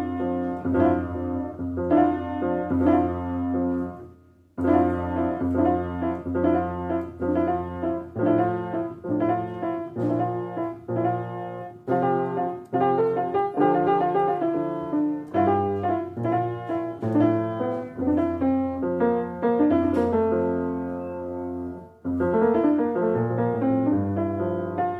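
Piano music: a melody of struck notes over held bass notes, breaking off briefly about four seconds in and dipping again near the end.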